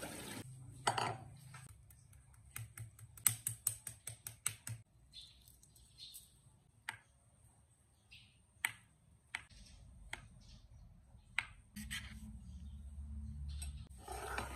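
Kitchen knife cutting boiled eggs on a plastic cutting board: a quick run of sharp taps about three seconds in, then scattered single taps. A low rumble comes in near the end.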